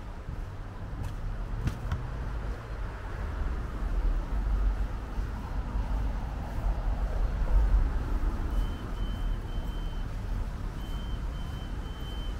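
Low, steady outdoor rumble, like distant road traffic. In the last few seconds come two runs of short, steady, high-pitched beeps, about three in each run.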